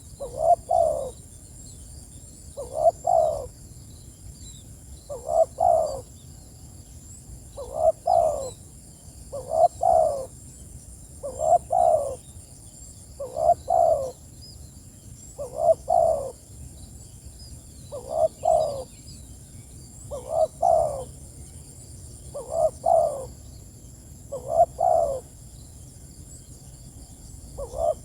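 Spotted dove (tekukur) giving its cooing call to other doves, a short multi-note phrase repeated about every two seconds. Faint high chirps of small birds run behind it.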